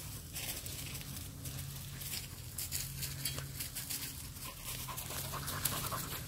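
Dog panting quickly, short rhythmic breaths of several a second that come in runs.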